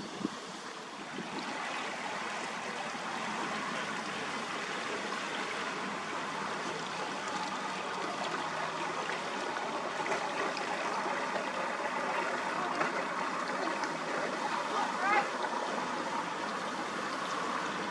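Steady rushing hiss of water, with a few short rising chirps about fifteen seconds in.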